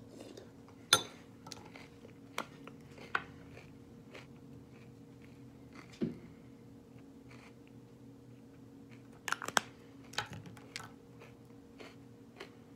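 Scattered clicks and taps of makeup being handled, a concealer stick and brushes picked up and set down, with a tight cluster of clicks near the end, over a faint steady hum.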